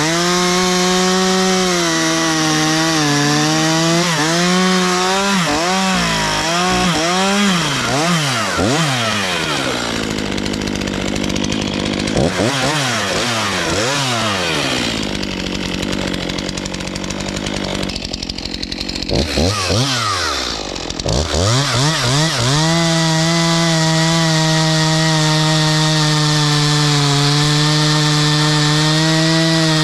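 Stihl MS 251 45cc two-stroke chainsaw running at high revs. Through the middle stretch its pitch repeatedly sags and recovers as it loads up cutting ash wood. About two-thirds of the way in it settles back to a steady high-revving note.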